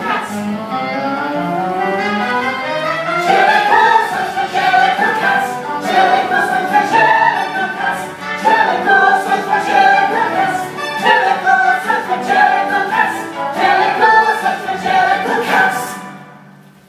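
Ensemble of many voices singing a loud choral passage in a musical theatre number, breaking off about a second before the end.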